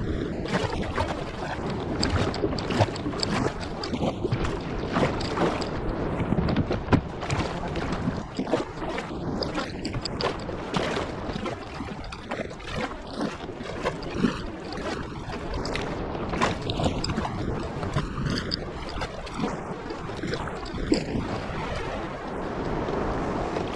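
Water splashing and sloshing around a fishing kayak, with irregular crackles and wind buffeting the microphone.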